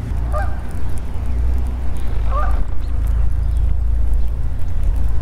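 Wind buffeting the microphone as a steady low rumble, with two short bird calls, one just after the start and one about two seconds later.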